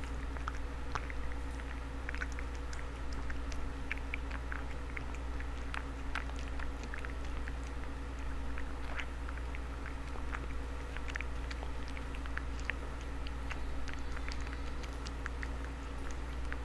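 Tortoiseshell cat eating from a paper bowl: irregular wet chewing and small clicking bites throughout, over a steady low hum.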